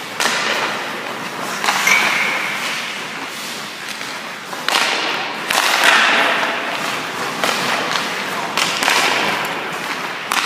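Ice hockey shooting drill: several sharp cracks of sticks striking pucks and pucks hitting a goalie's pads, with skate blades scraping the ice and the rink echoing after each hit.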